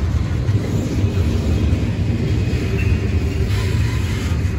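Norfolk Southern freight train of open-top hopper cars rolling past close by: a steady, loud rumble of steel wheels on rail.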